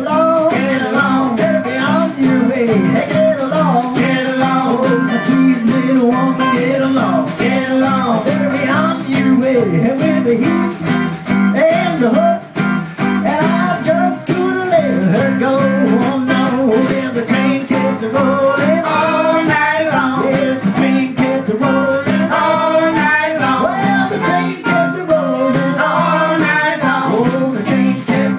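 Live skiffle band playing an instrumental break on acoustic guitars, a steady strummed rhythm under a busy lead line.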